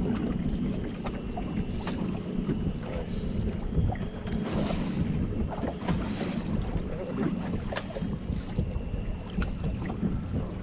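Wind buffeting the microphone over a steady low rumble on an open boat, with a few small knocks scattered through.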